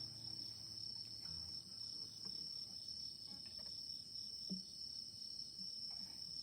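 Crickets chirring steadily in a high, even band, with a few faint scattered ticks.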